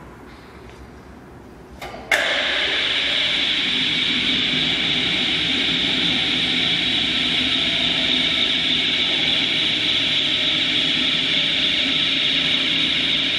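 Electric drive of a battery-powered trackless transfer cart running with a steady mechanical noise. It switches on abruptly with a click about two seconds in, after a quiet start.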